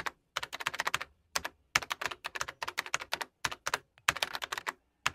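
Computer keyboard typing sound effect: rapid key clicks in several quick runs separated by short pauses.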